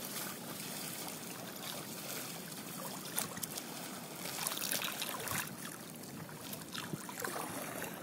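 River water lapping and trickling, with small irregular splashes over a steady wash of noise.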